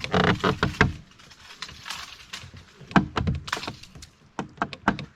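Sharp clicks and knocks in three short clusters as a snagged crankbait is yanked and shaken to free it with the fishing rod.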